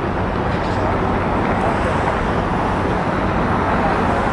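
Steady low engine rumble over constant street noise, with no distinct events.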